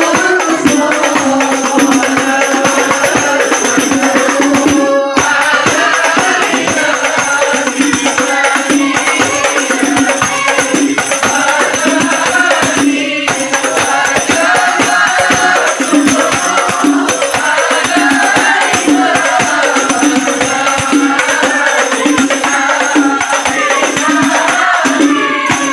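A group of men chanting devotional verses together, over a fast, steady beat of hand-struck rebana frame drums.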